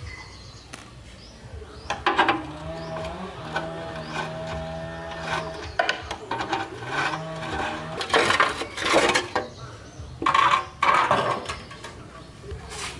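Metal hand tools working on an old motorcycle's rusty rear axle and chain adjuster: scattered clinks and knocks, with two bursts of rapid clicking about a second long, near eight and ten seconds in.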